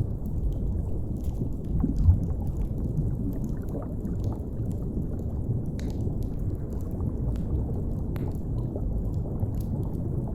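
Deep, muffled underwater rumble and water movement, with faint scattered pops and crackles of a fire over it and one stronger low bump about two seconds in.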